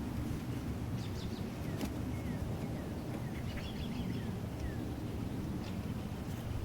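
Birds chirping: scattered short calls and quick falling notes, over a steady low outdoor rumble.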